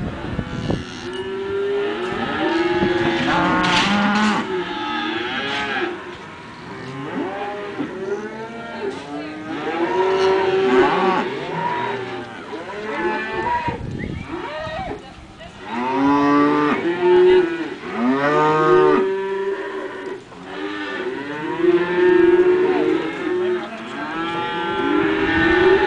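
A herd of cattle mooing and bawling, many calls overlapping almost without a break.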